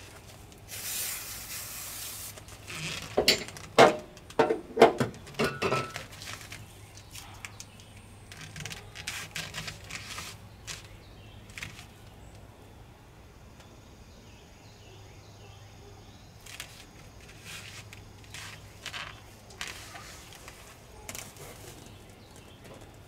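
A short aerosol spray hiss, then a cluster of sharp knocks and clatter from about three to six seconds in, the loudest part. Scattered faint taps and rustles follow over a low steady hum.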